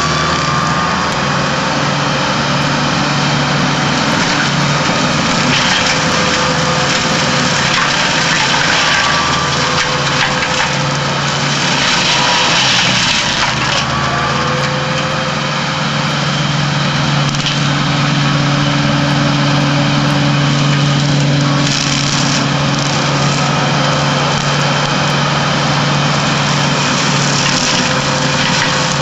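Tractor-mounted forestry mulcher with swinging forged-steel hammers, its rotor running and shredding branches and brush into chips, over the tractor's steady engine. The splintering grows louder for a couple of seconds about twelve seconds in and again near twenty-two seconds.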